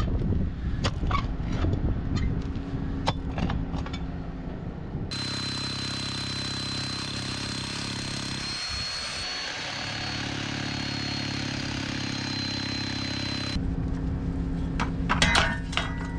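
Manual post hole digger jabbing and scraping into rocky soil, a series of sharp knocks and clicks of metal on rock, over a steady engine hum. For about eight seconds in the middle the digging stops and only the steady hum with a thin high whine is heard, before the knocks of the digger resume near the end.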